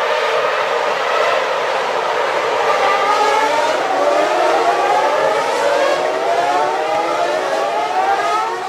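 Siren sound played as a phone ringtone: a wavering siren tone with several pitches slowly climbing, cutting off near the end.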